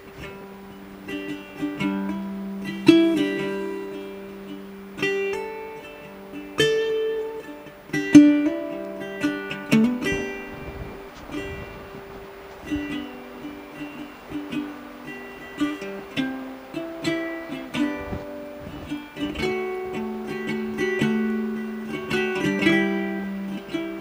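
Background music: a plucked string instrument picking a melody of short, decaying notes over a few held low notes.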